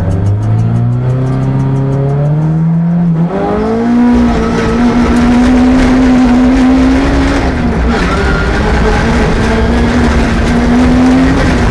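Rally car engine under hard acceleration: the revs climb steadily for about three seconds, then jump higher and stay high with brief small dips.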